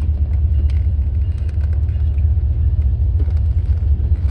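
Steady low rumble heard inside a closed car cabin, with faint scattered ticks of rain on the car.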